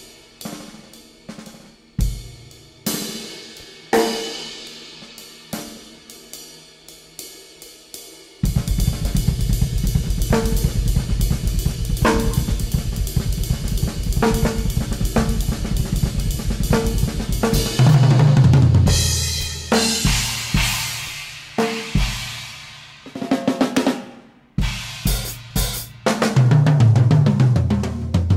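Improvised drum-kit playing. It opens with scattered single strikes on drums and cymbals, each ringing out. About eight seconds in it switches suddenly to a dense, fast, unbroken pattern, and deep low notes swell in twice in the second half.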